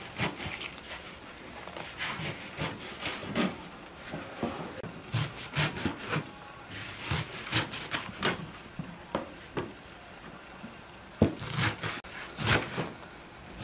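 Large kitchen knife chopping a pile of fresh green herbs on a wooden cutting board: irregular knocks of the blade on the wood, in quick clusters, with the rustle of the leaves.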